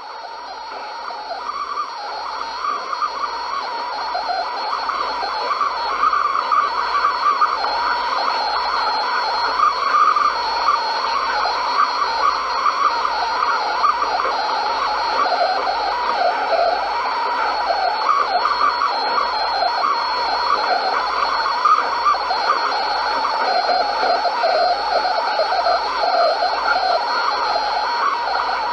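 AM radio static: a steady hiss and crackle with wavering interference, under a faint steady high whistle. It fades in over the first few seconds and then holds level.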